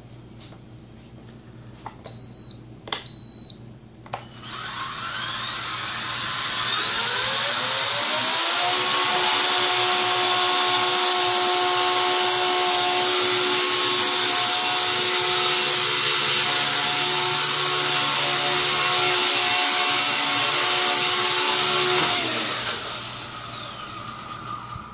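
Micro electric RC helicopter's motor and rotor: after two short beeps, it spools up with a rising whine over about four seconds. It then runs at a steady pitch for about thirteen seconds and winds down near the end.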